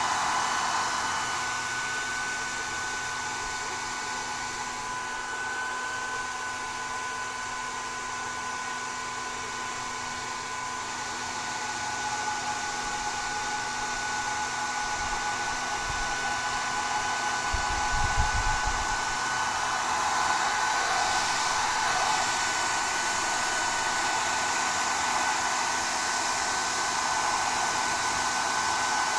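Hand-held hair dryer blowing steadily, an airy rush with a steady motor whine, easing slightly a few seconds in and growing louder again about halfway. Brief low buffeting of the airflow a little past the middle.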